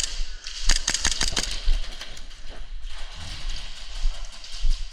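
A quick string of sharp snapping cracks, about half a dozen in under a second, starting about half a second in, with fainter scattered snaps later: airsoft guns firing. A steady low rumble runs underneath.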